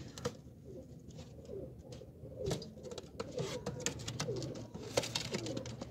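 Domestic high flyer pigeons cooing again and again in short, rolling coos, the puffed-up male displaying to its mate. A few sharp taps cut in, about a quarter second in, halfway through and near the end.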